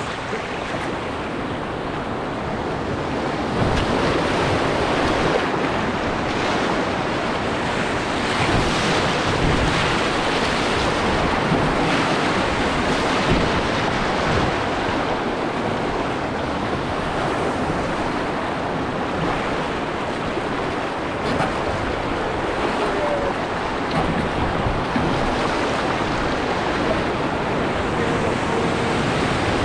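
Rushing whitewater of a Class III river rapid, with wind noise on the microphone. The rush grows louder about three and a half seconds in as the raft moves into the rapid.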